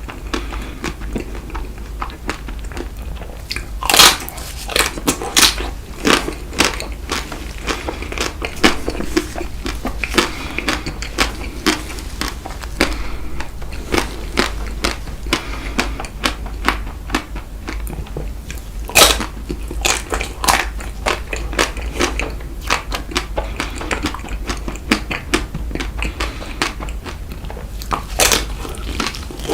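Close-miked biting and chewing of chocolate-coated Tico ice cream, the frozen chocolate shell cracking in many sharp crunches with wet chewing between, a few bites much louder than the rest. A steady low hum runs underneath.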